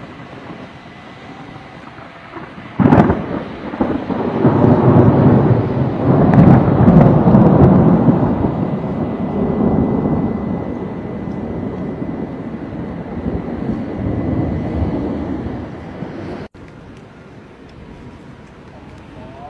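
Thunder: a sudden sharp crack about three seconds in, then a long rolling rumble that slowly fades. It cuts off abruptly about sixteen seconds in, leaving a quieter steady hiss.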